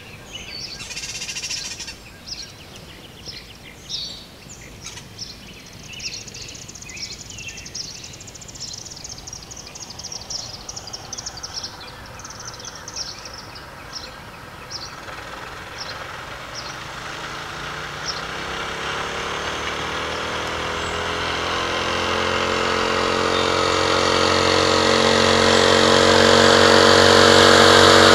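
Birds chirping at first, then a mini bike's small engine held at full throttle, approaching and growing steadily louder over the second half until it is the loudest sound near the end.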